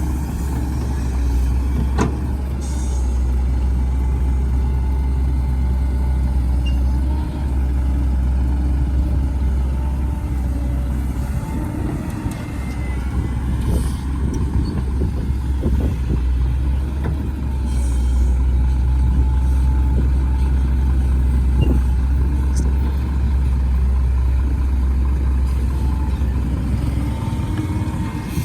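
Heavy diesel engine running steadily with a deep low hum, with a few sharp knocks scattered through it.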